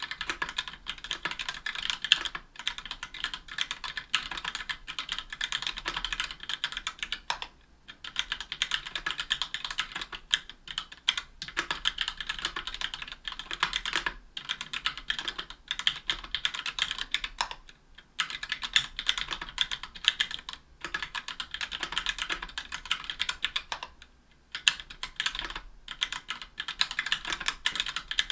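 Continuous fast typing on a mechanical keyboard with Gateron Black Ink linear switches and GMK keycaps on an aluminium plate and case, a dense run of key clacks with a few short pauses. Lubed and clipped screw-in stabilizers on the long keys.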